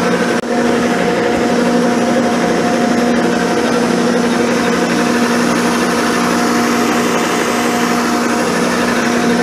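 Abene milling machine running a six-flute end mill through the top face of a cast-iron camel back straight edge casting. A steady machine hum with a constant rough cutting noise, briefly dipping about half a second in.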